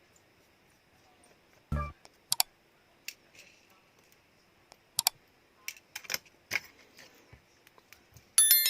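Scattered sharp clicks and taps of small tools and smartphone parts being handled on a work surface. There is a dull thud about two seconds in and a ringing metallic clink near the end.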